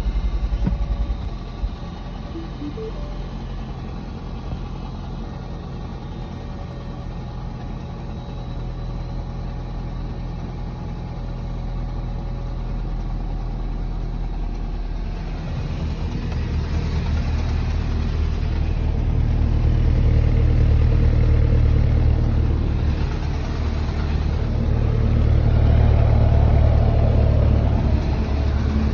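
Mini Cooper S (R56) 1.6-litre turbocharged four-cylinder idling just after a cold start, growing louder in two swells in the second half. It carries a knocking that the owner still hears after the timing chain was replaced, though less than before.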